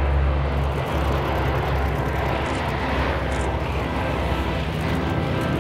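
C-130 Hercules transport's four turboprop engines running steadily: a low propeller drone under a broad rush of engine noise.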